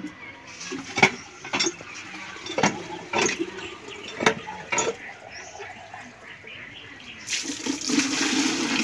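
Water mixed with liver tonic being poured for chickens to drink. Several sharp knocks come in the first few seconds, then a steady pour starts about seven seconds in.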